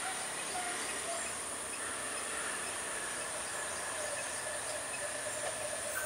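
Steady high-pitched chorus of insects, with an approaching Class S11 diesel multiple unit faintly audible beneath it.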